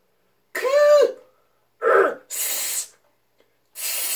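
A young man yelling consonant sounds one at a time, each cut off by silence: a voiced, pitched yell about half a second in, a short voiced burst at about two seconds, then a drawn-out hiss, and another hiss near the end.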